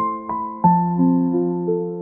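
Background music: soft, slow electric piano playing sustained chords and single notes.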